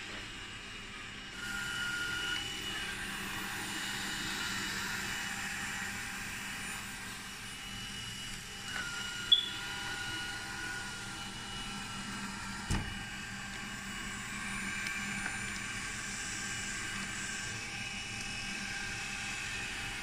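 Xiaomi Mijia 1C robot vacuum running: a steady whir of its suction fan and brushes as it moves. There is a short sharp click about nine seconds in and a knock about four seconds later.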